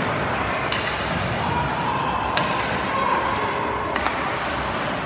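Ice hockey play: a few sharp knocks of stick and puck over a steady rink noise.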